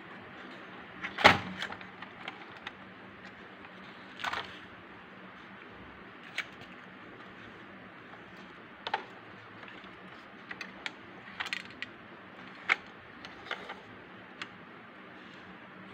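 Scattered light clicks and taps of a homemade toy combine harvester model being handled, its parts moved by hand, with the sharpest knock about a second in, over a steady low hiss.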